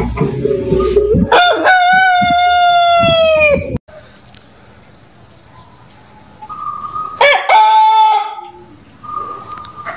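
Rooster crowing: a long crow starting about a second in, held and then falling at the end before cutting off abruptly, and a second, shorter crow later on. A brief low sound comes before the first crow.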